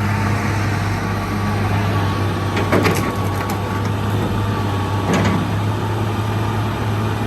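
Hitachi EX225USR excavator's diesel engine running steadily with a low hum, and two brief knocks about three and five seconds in.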